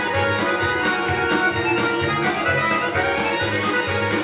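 Accordion playing an instrumental break in a lively folk-style song, its melody carried over a steady, regular bass beat.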